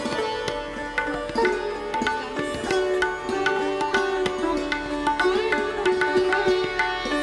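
Background music: an Indian-style instrumental of plucked string notes, some bending in pitch, over a hand-drum beat.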